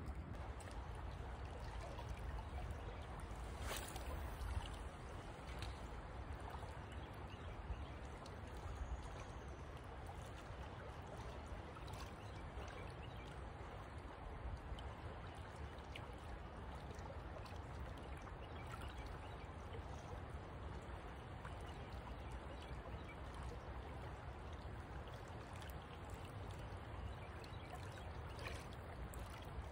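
Shallow river current flowing steadily, an even rush of water with a low rumble underneath and a few faint clicks.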